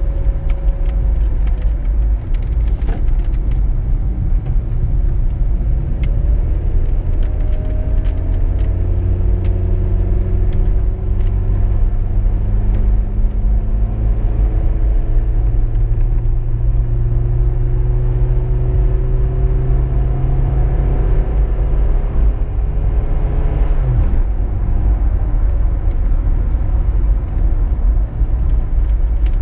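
Car engine and road rumble while driving. The engine note climbs slowly for about fifteen seconds, then drops abruptly about three-quarters of the way through.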